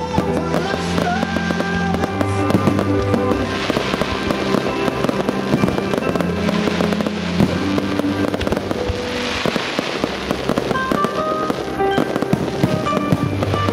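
Aerial fireworks shells bursting in quick succession, with crackling that swells up three times, about four, six and nine seconds in, over music playing throughout.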